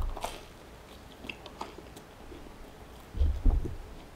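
A bite into a grilled cheese sandwich with a toasted, cheddar-crusted crust: a short crunch at the start, then quiet chewing with a few faint crackles. A brief low thumping about three seconds in is the loudest sound.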